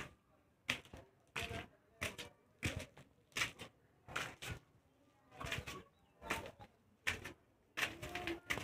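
Footsteps on bare concrete stairs, a step about every two-thirds of a second.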